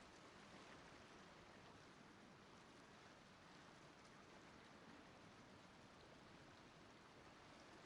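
Near silence: a faint, steady hiss with no distinct sound in it.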